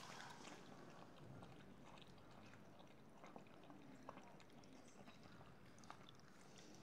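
Faint scattered clicks and smacks of Rottweiler puppies feeding from a plastic bowl, over quiet room tone.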